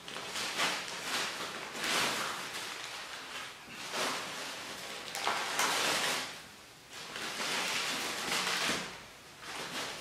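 Crumpled newspaper and plastic packing rustling and crinkling as it is pulled out of a cardboard box by hand, in irregular handfuls with short lulls.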